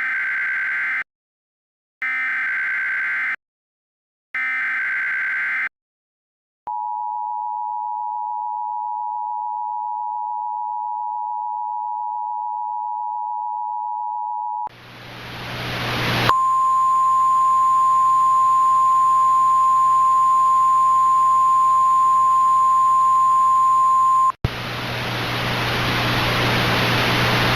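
Emergency Alert System tones: three short bursts of warbling SAME header data, each about a second long, then the steady two-tone EAS attention signal for about eight seconds. Radio static then swells in, a single steady weather-radio warning tone sounds through it for about eight seconds and cuts off, and the static hiss carries on.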